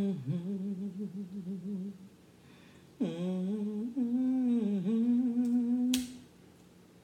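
A woman humming with her mouth closed in pleasure at the taste of her food. She hums two wavering phrases, a shorter one first and then a longer one with dips in pitch. A single sharp click comes near the end.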